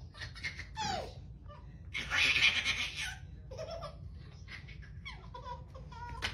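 Laughter and a baby's short vocal sounds, one falling in pitch about a second in. The loudest burst of laughter comes about two seconds in and lasts about a second.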